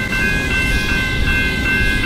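Railway level-crossing warning bells ringing in a steady pulsing rhythm, about two strokes a second, while the boom gates are down for an approaching train. A low rumble runs underneath.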